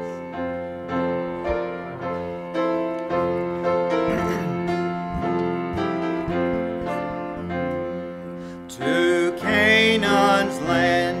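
A hymn introduction played mainly on piano, with steady held chords. Near the end the congregation starts singing along.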